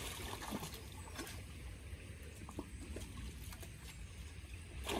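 A dog wading through a shallow stream, the water sloshing softly around its legs, with a few faint splashes over the steady running of the stream.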